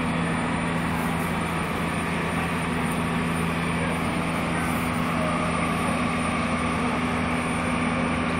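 A steady, unbroken droning rumble with a constant low hum, like a running engine or machine; a fainter higher hum joins about five seconds in.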